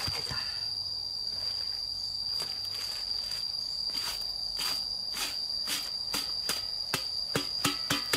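A bunch of green leaves swept in quick scratchy strokes across the lid of a metal pot buried in an earth pit, brushing off ash and soil. The strokes come faster and louder near the end. A steady high insect drone runs underneath.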